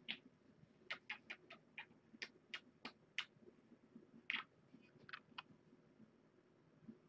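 A man kissing a kitten's head: about a dozen short, faint lip smacks at an uneven pace, stopping after about five and a half seconds.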